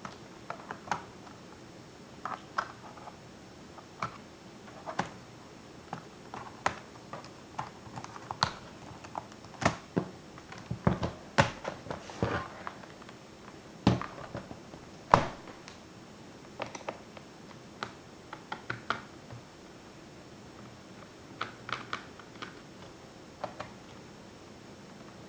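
Irregular small clicks, taps and knocks of a ThinkPad laptop's plastic and metal parts and small tools being handled during disassembly. The knocks come thickest and loudest around the middle, with one sharp knock standing out about fifteen seconds in.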